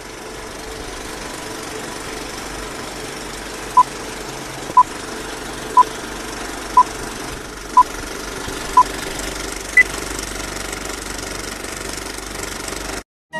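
Vintage film-projector sound effect: a steady mechanical clatter and crackle, with six short beeps a second apart and a seventh, higher beep a second later, marking a film-leader countdown. The clatter cuts off near the end.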